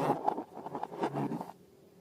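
Slime being handled, with sticky crackling and rubbing that stops about a second and a half in.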